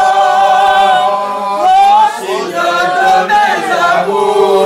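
A man and a woman singing a French song together, holding one long note for about a second and a half, then going on with shorter sung phrases.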